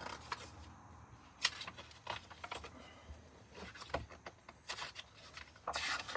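Pages of a paperback book being turned by hand: a series of short papery rustles and flicks, with a longer rustle near the end.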